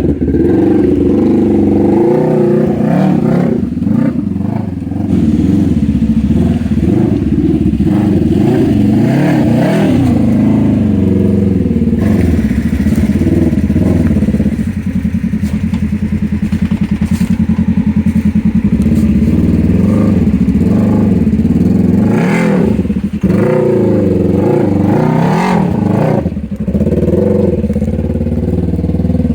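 An off-road vehicle engine running under load, its pitch rising and falling as the throttle is worked, with a few knocks and clatters near the end.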